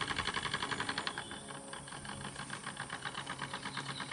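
RETROL SE-02 model steam engine running with a quick, even beat of exhaust puffs and mechanical clicks, being turned down with its Stevenson's link reversing gear used as a throttle. The beat gets quieter about a second in.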